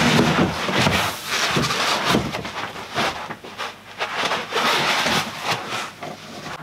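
Plastic wrap crackling and cardboard and polystyrene packing rubbing and knocking as a heavy battery is lifted up out of its box: a steady rustling broken by many short knocks.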